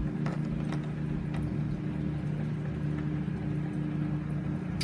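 A steady low mechanical hum, with a few light taps and one sharp click at the end as plastic toy figures are handled and set down on a glass tabletop.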